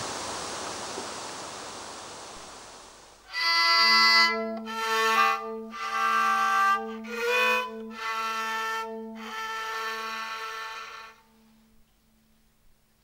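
A steady rushing noise fades away over the first three seconds. Then a solo fiddle plays a short, slow melody in several phrases over a held low drone note, stopping about eleven seconds in.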